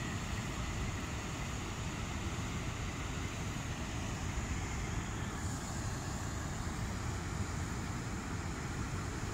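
Water pouring over a low-head dam spillway: a steady, unbroken rush.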